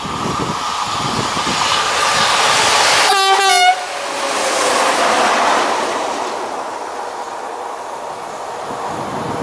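A convoy of SNCF electric locomotives, two BB 26000s towing a BB 22326, passes at speed. It sounds a short horn blast lasting about half a second, about three seconds in, whose pitch drops slightly at the end. The rumble and clatter of wheels on rail swell as the locomotives go by and then fade away.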